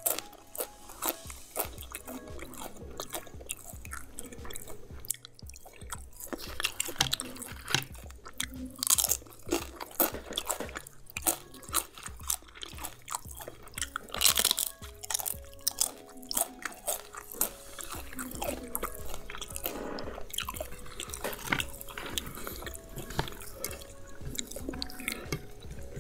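Close crunching and chewing of a crisp fried chicken wonton, with sharp crunches of the fried wrapper, the loudest about fourteen seconds in, among softer chewing.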